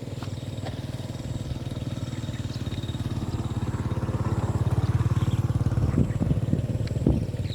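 A small engine running with a fast, even putter that grows louder through the middle, as of a motor vehicle passing close by, with a few knocks near the end.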